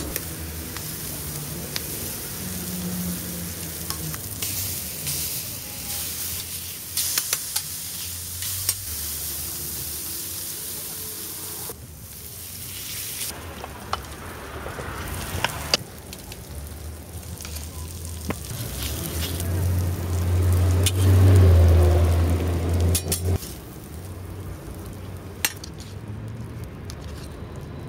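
Food sizzling on a flat-top griddle, with scattered sharp clinks of metal utensils. A low hum swells for a few seconds about two-thirds of the way in.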